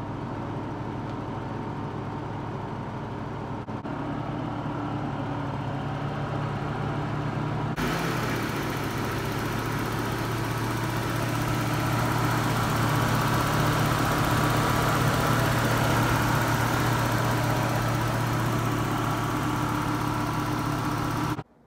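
Nissan 300ZX (Z31) turbocharged V6 engine idling steadily and smoothly after being revived from long storage; about eight seconds in the sound brightens and grows slowly louder, and it cuts off suddenly near the end.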